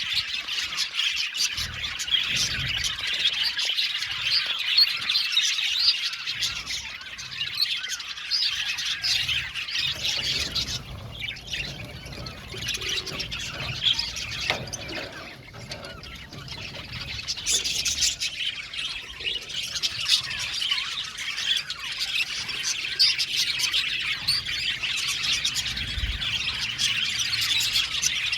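A flock of budgerigars chirping and chattering together in a dense, overlapping warble with squawks mixed in. It thins out for a few seconds near the middle, then picks up again.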